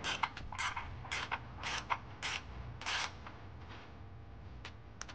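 Hand ratchet wrench backing off a 14 mm pinch nut on an exhaust flange stud where the catalytic converter meets the Y-pipe. It gives a short rasp of ratchet clicks on each back-swing, about two a second, and stops after about three seconds.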